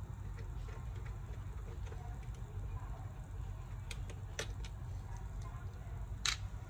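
Small scattered clicks and taps of a screwdriver and screws on a laptop's plastic bottom case as the case screws are taken out, with one sharper click near the end, over a steady low hum.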